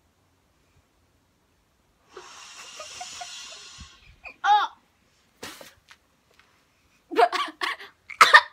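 A mouthful of flour blown out in a long breathy spluttering exhale about two seconds in, followed by a short squeal and bursts of laughter and spluttering near the end.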